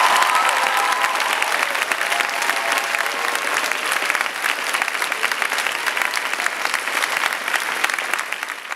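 Audience applauding steadily in a hall, a few voices cheering over it in the first second or so.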